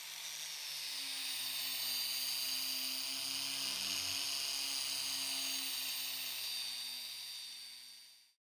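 Wire cup brush spinning on a power tool, scrubbing rust off a blowtorch's steel burner tube: a steady high whine with a hiss of bristles on metal, fading out near the end.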